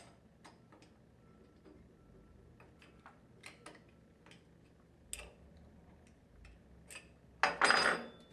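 Scattered light metallic clicks of a steel wrench working loose the head cap screws on a cast-iron internal gear pump, then, near the end, a loud clatter as the wrench is set down on the wooden workbench.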